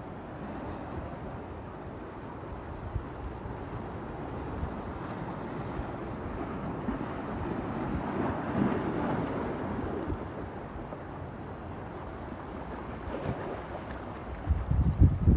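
Ocean surf washing, with wind blowing on the microphone; the wash swells about halfway through, and a strong gust buffets the microphone with a low rumble near the end.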